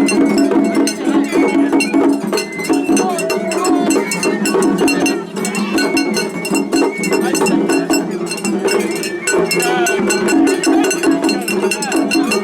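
Japanese festival hayashi music: a hand-held atarigane gong clangs in a fast, steady rhythm over drums and a wavering pitched melody line.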